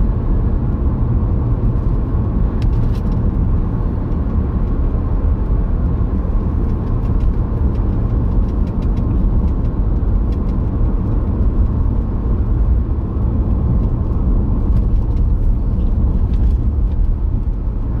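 Steady road and engine noise inside a car's cabin while driving at about 60–70 km/h, a continuous low rumble with no distinct events.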